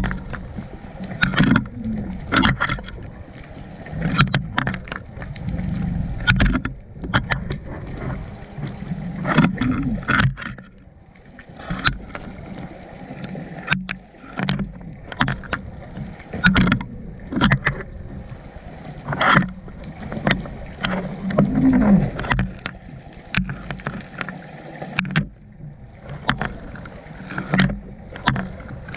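Underwater sound picked up through a GoPro's waterproof housing: irregular sharp clicks and knocks over a low, muffled rumble.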